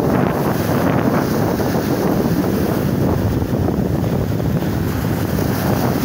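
Small sea waves breaking and washing up the shore close by, a steady rushing surf, with wind buffeting the microphone.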